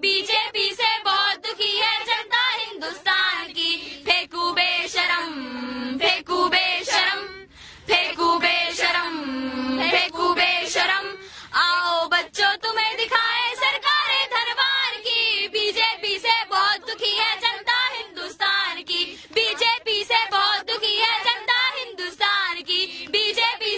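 A high voice singing a Hindi song in long phrases with wavering pitch, breaking off briefly twice.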